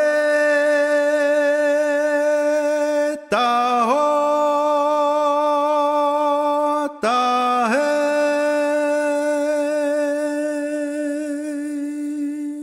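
Native American flute played in three long breaths, each starting a little low, sliding up and holding one steady note. The last note stops at the very end.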